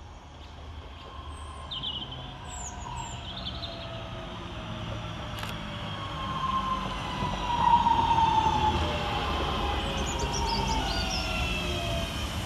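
Northern Class 323 electric multiple unit arriving and braking to a stop at the platform: its motors whine, falling slowly in pitch as it slows, over a rumble of wheels on rail that grows louder as it draws alongside. A few birds chirp faintly near the start and near the end.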